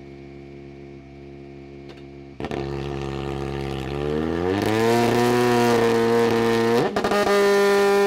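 Volkswagen Polo R WRC's turbocharged four-cylinder engine running with the car standing still: a steady idle, then it steps up in loudness about two and a half seconds in. Around four seconds in it climbs in pitch and holds at raised revs, with a brief dip just before seven seconds, then holds steady again.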